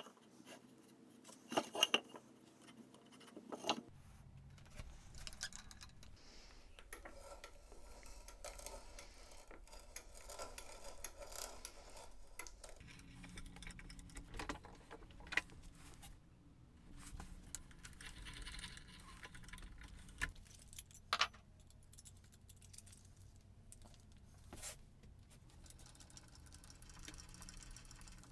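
Hand tools being handled on a wooden workbench: a few sharp clicks and knocks of a metal combination square in the first few seconds, then a hand drill boring into the end grain of a spruce block, a low steady rasping broken by scattered light metallic clicks.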